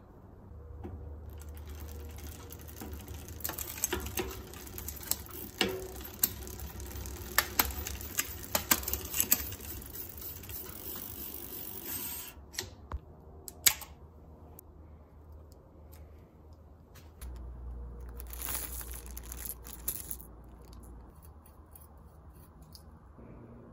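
Hand work on a bicycle's front derailleur and chain drivetrain: irregular metal clicks and ticks over a light hiss, busiest in the first half, then a few scattered clicks and a brief noisier stretch before it settles.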